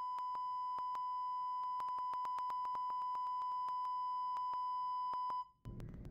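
Steady 1000 Hz test tone played at full volume through two 6.5-inch car woofers wired in parallel on a head unit, reaching about 120 dB. Irregular clicks run through it, and it cuts off about five and a half seconds in.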